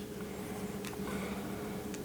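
Faint handling of plastic toy parts: two light clicks over a steady low electrical hum.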